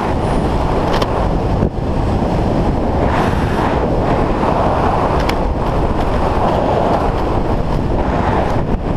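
Airflow from a wingsuit flight blasting over the camera's microphone: a loud, steady wind rush. Brief crackles of buffeting break through about a second in, a little past three seconds and again around five seconds.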